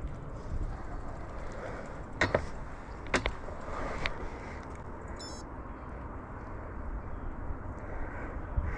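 Steady outdoor background noise with a low rumble, broken by three sharp clicks about two, three and four seconds in, and a brief high chirp around five seconds in.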